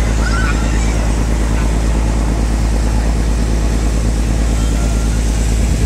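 Ferry boat's engine running steadily underway, a loud, even drone that holds its pitch.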